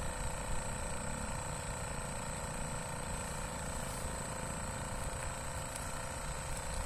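A steady engine hum over a low rumble.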